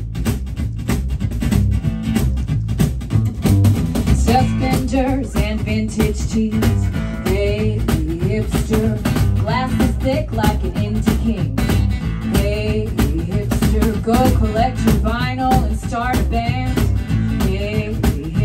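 Live acoustic band playing a song: strummed acoustic guitar, upright bass and a cajón box drum keeping a steady beat, with a woman singing over it from about four seconds in.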